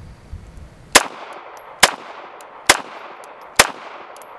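Four evenly spaced shots from a Bersa Thunder 380 Plus, a fixed-barrel direct-blowback .380 ACP pistol, each shot ringing out briefly, about one shot a second, starting about a second in.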